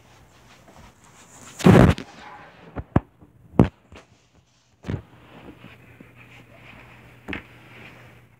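Knocks and thumps: one loud thump just under two seconds in, then five sharp knocks spread over the following seconds.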